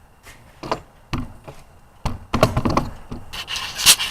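A turned wooden workpiece being taken off a wood lathe: a few knocks and clunks of wood and metal, a quick clatter about two seconds in, and a scraping rub near the end.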